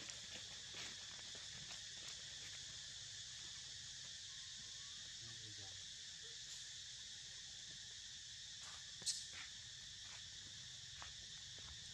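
Steady chorus of insects, a continuous high hiss, with a few faint ticks and one sharp click about nine seconds in.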